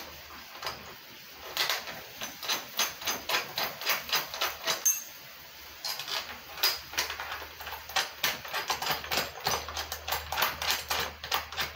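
Irregular clicking and knocking of a brush cutter's plastic safety guard and its clamp being handled and fitted onto the metal shaft, several clicks a second, with a short lull about halfway.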